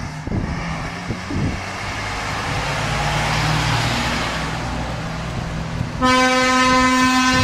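Tatra 815-7 fire engine's diesel engine running as the truck pulls away and drives past, growing louder as it passes. About six seconds in, its air horn starts, one steady loud tone that is louder than the engine and still sounding at the end.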